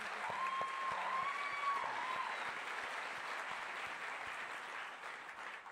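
Audience applause from a crowd, which fades toward the end, with one voice giving a long high whoop over it during the first two seconds.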